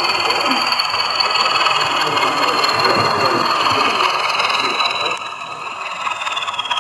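Model diesel locomotive sound, a diesel engine running, with a high whistle that slowly falls in pitch near the end.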